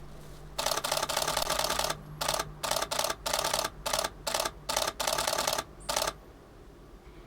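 Canon EOS-1D X Mark II shutter firing in continuous high-speed bursts: about ten runs of fast clicking, the first and longest over a second, the rest shorter, stopping about six seconds in.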